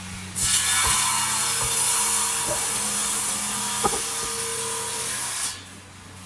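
A power tool cutting into wood for about five seconds, starting and stopping abruptly, over a steady low hum.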